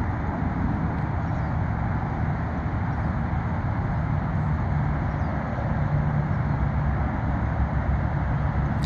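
Steady low outdoor rumble, with a low hum that grows stronger about halfway through.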